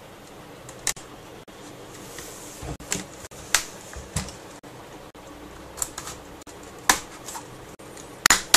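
Plastic locking clips of a Sony Vaio E-series laptop screen bezel snapping loose one by one as the front panel is pried away from the back cover, making a crackling sound. There are about seven sharp, separate clicks at irregular intervals, and the loudest comes near the end.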